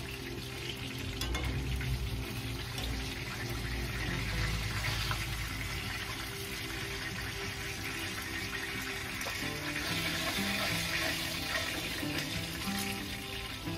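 Chicken frying in hot oil in a cast iron skillet, a steady sizzle, with music playing in the background.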